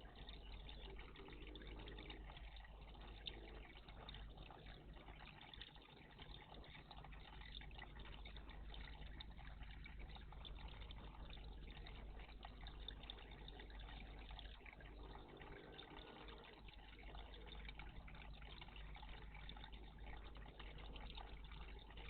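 Faint, steady trickling water in a garden bird bath.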